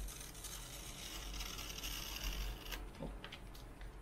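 A small pen-style cutter slitting along the sealed edge of a plastic film sleeve: a steady scratchy rasp of blade on plastic that grows louder in the middle, followed by a couple of light ticks near the end.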